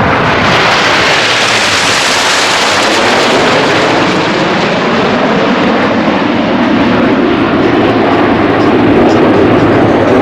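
Snowbirds' CT-114 Tutor jets, each with a single turbojet, flying past with a loud, continuous jet roar whose pitch drops over the first couple of seconds as they go by.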